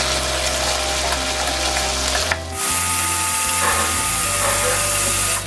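Pork back ribs sizzling in a frying pan as a soy sauce and tuna-extract seasoning reduces around them, with a short break a little over two seconds in.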